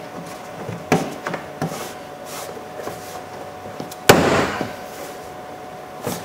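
Car door trim panel being pressed onto the door, its retaining clips knocking into place with a few sharp knocks, the loudest about four seconds in.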